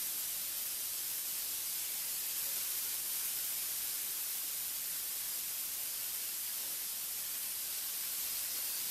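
Marinated chicken breasts sizzling on the hot ribbed plate of a preheated electric contact grill: a steady hiss.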